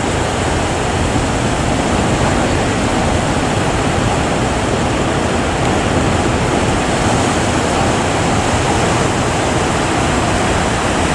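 Steady rushing noise of breaking sea surf with wind over the microphone.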